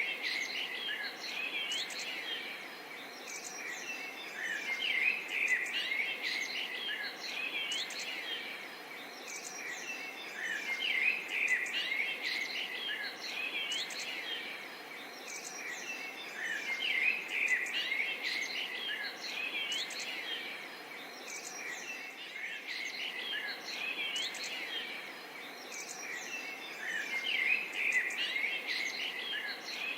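A chorus of small birds chirping and twittering in bouts that swell about every three seconds, over a steady background of insects.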